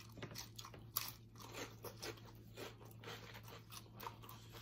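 Faint, close crunching as a hard taco shell and potato chips are bitten and chewed: irregular crisp crunches, the sharpest about a second in.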